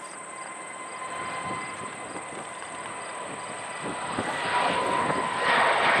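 Jet airliner engine noise, a steady rushing that grows louder from about four seconds in.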